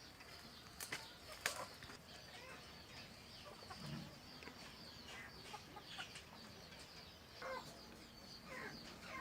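Chickens clucking, with scattered short calls and two sharp clicks about a second in.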